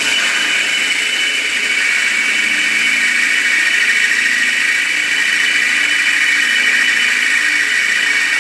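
Cordless drill boring through a steel mounting bracket, running continuously at full speed under load, with a steady high-pitched squeal from the bit cutting metal.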